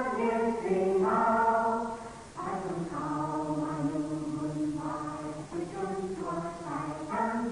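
A choir sings slow, sustained chords. There is a short break about two seconds in, and then the singing goes on with lower held notes.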